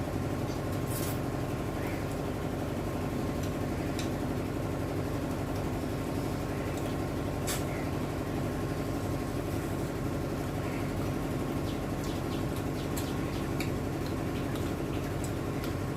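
A steady mechanical hum of several even tones, unchanging throughout, with faint scattered clicks and smacks of eating by hand.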